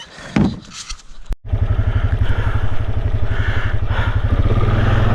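An off-road vehicle's engine starts abruptly about a second and a half in, catching at once, then runs at a steady, rhythmic idle.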